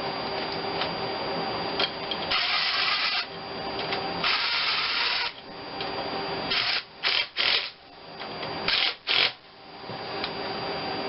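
Power driver running in the two bolts that hold the EGR valve and its new gasket to the engine: two runs of about a second each, then several short bursts as the bolts are snugged down.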